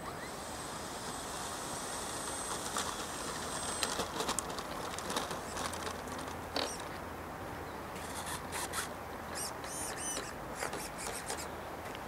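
Open-air wind hiss with a thin, high steady whine for the first few seconds. After that come scattered sharp clicks, and high bird chirps repeat later on.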